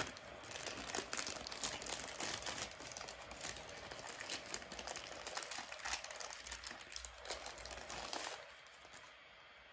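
Clear plastic bag crinkling and rustling as it is handled and pulled open to get at the multimeter test leads inside, a busy run of quick crackles that dies away about a second before the end.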